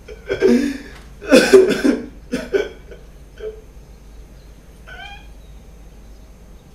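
A person coughing hard a few times in quick succession, the loudest cough about a second and a half in, followed by a short rising vocal sound about five seconds in.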